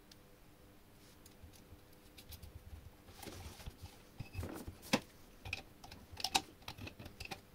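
Light, irregular clicks and taps of hands handling a hand-cranked chainsaw's steel frame and gears, with pliers gripping a nut by the drive gear. The clicks are sparse at first, get busier after about three seconds, and the sharpest come about five and six seconds in.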